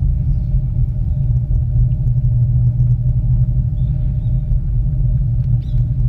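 Steady low rumble of an aerial ropeway cabin travelling along its cable, with a faint steady hum above it.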